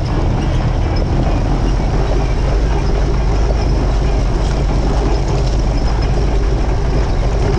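Willys CJ-2A Jeep crawling over loose gravel and rock, heard from under the body: a steady, loud low rumble of engine and drivetrain, with the GBC Kanati Mongrel ATV tires crunching stones.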